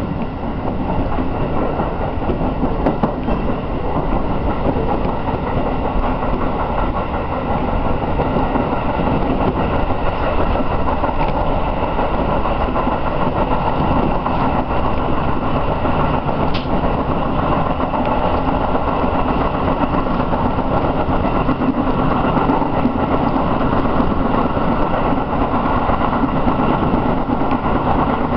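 Running noise of a JR East 211 series electric train heard from inside the cab: motors and steel wheels on the rails. It grows louder over the first couple of seconds as the train gathers speed, then holds steady.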